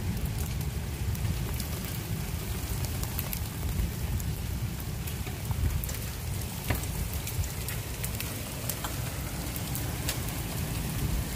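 Steady heavy rain falling on pavement, lawn and stone steps. Scattered sharp ticks of drops strike near the microphone, over a low rumble.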